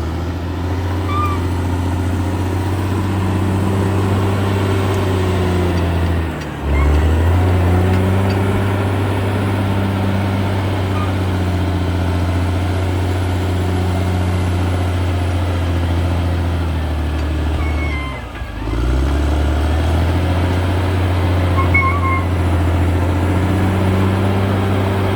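CAT D6R XL bulldozer's diesel engine running under load with a steady low drone. Twice, about six seconds in and again around eighteen seconds, the engine note dips briefly in pitch and level, then pulls back up.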